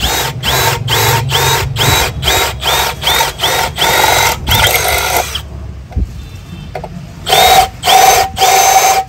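Milwaukee M12 Fuel brushless cordless drill run in short trigger bursts while drilling into a steel plate with a twist bit. Each burst is a motor whine rising as it spins up, about two to three a second. There is a pause of about two seconds past the middle, then a few longer runs near the end.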